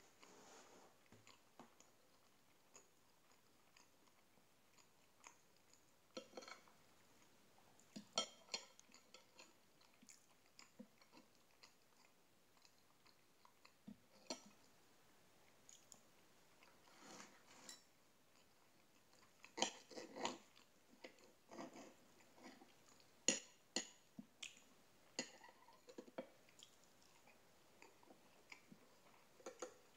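Faint chewing, with scattered clicks and scrapes of a fork and knife cutting pancakes on a plate.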